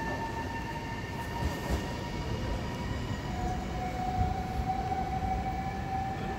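AnsaldoBreda Class 72 electric multiple unit accelerating away, its traction motors giving a steady high whine of several tones over a low rumble. A second, lower tone comes in about three seconds in.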